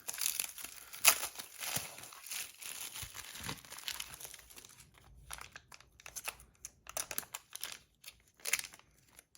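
Packaging being unwrapped by hand, crinkling and tearing, with one sharp crack about a second in. The crinkling is dense for the first half and thins to scattered crinkles and clicks in the second half.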